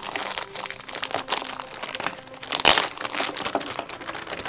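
Thin clear plastic bag crinkling and rustling as hands handle and open it, with a louder burst of crinkling about two and a half seconds in.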